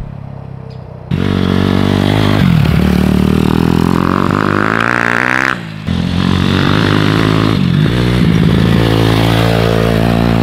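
Freshly rebuilt pit bike's small four-stroke single-cylinder engine being ridden and run in on its new piston, head and timing chain, revving up and down. It starts loud about a second in and drops out briefly for a moment partway through before carrying on.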